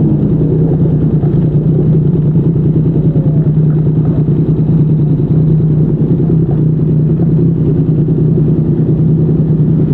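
Yamaha MT-09's three-cylinder engine running through a Yoshimura R55 slip-on exhaust, held at a steady engine speed while the motorcycle is ridden.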